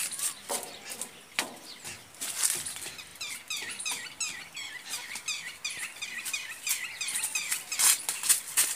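A bird calling in a rapid, even series of short high chirps for several seconds, over scattered crunching clicks of footsteps on grass and dry leaves that get louder near the end.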